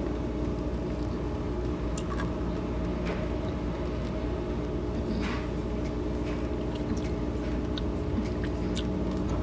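Steady low mechanical hum with a few faint clicks about 2, 3 and 5 seconds in.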